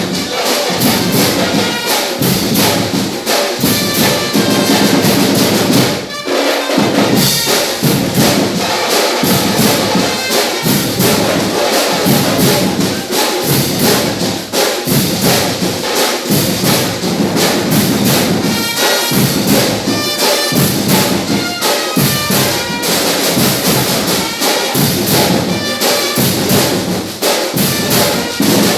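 Fanfarra marching band playing: brass instruments carry the melody over a steady beat of drums, with a brief drop in the playing about six seconds in.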